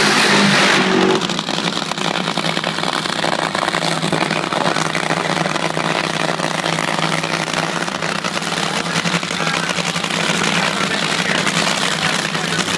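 Supercharged nitro Funny Car V8 engines roaring very loudly through about the first second, then running on in a dense, steady, rough roar.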